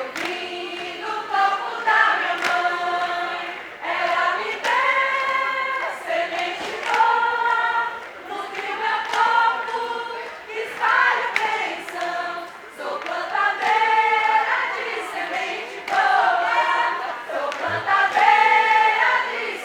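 A group of women singing a ciranda together in repeated sung phrases with short breaths between lines, and a light regular beat of sharp taps underneath.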